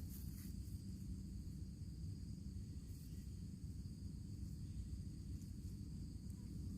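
Faint, steady insect chorus of high-pitched chirring, typical of crickets, over a low steady rumble.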